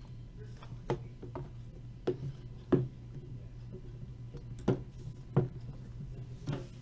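Hands handling and opening a small cardboard trading-card pack box, giving about six light clicks and taps of cardboard spread out, over a steady low hum.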